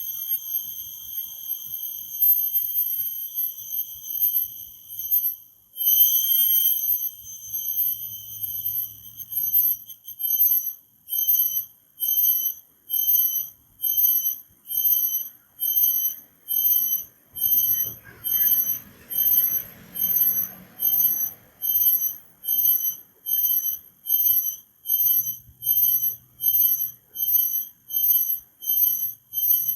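Cricket chirping: a high, steady trill for about the first ten seconds, which then breaks into regular chirps at about one and a half a second.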